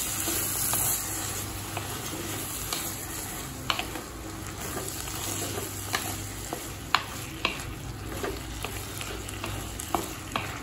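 Chopped cluster beans sizzling in oil in an earthen kadai while a spatula stirs them gently. The spatula gives sharp scrapes and knocks against the pot every second or so.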